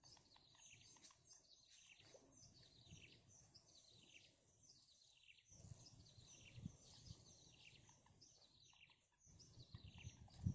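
Faint chirping of small birds: many quick, high chirps falling in pitch, overlapping without pause. A low rumble runs under them in the second half.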